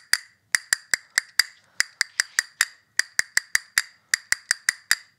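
Castanets clicking in quick runs of about five strikes, with short pauses between runs, as in finger-roll practice.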